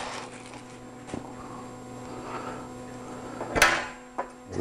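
Hands handling a microphone cable and its packaging: a faint click about a second in, then a short sharp rustle about three and a half seconds in and small knocks near the end, over a low steady hum.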